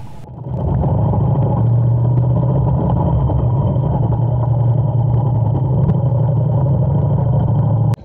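Motorcycle engine running steadily under way, a low, muffled drone.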